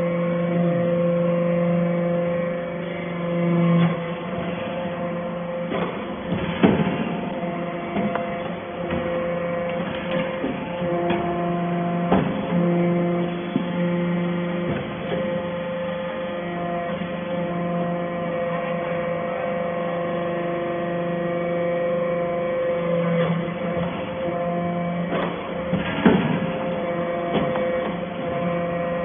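Hydraulic baler running: a steady hum from its motor and pump, with a few sharp clanks, the loudest about six and a half seconds in and again near the end.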